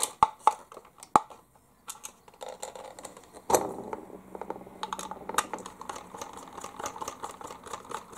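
Clicks and taps of a hand screwdriver and small screws on the plastic chassis and body of a 1/16 scale RC military truck as the body is screwed back on. A steady low hum comes in suddenly about three and a half seconds in.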